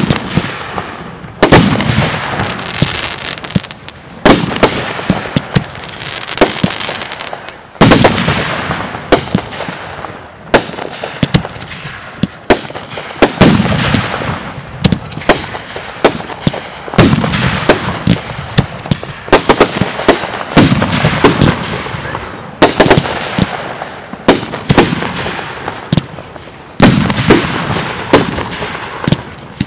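Consumer aerial fireworks going off in quick succession: loud bangs from shots launching and bursting, about one every second or so, with crackling and hissing between them.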